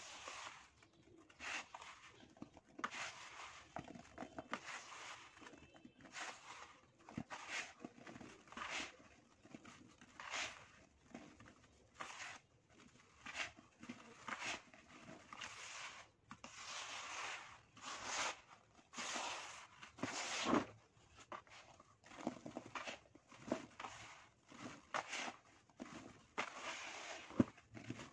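Dry soil crumbled by hand and poured into a plastic basin: gritty rustling and pattering in short irregular bursts, about one or two a second.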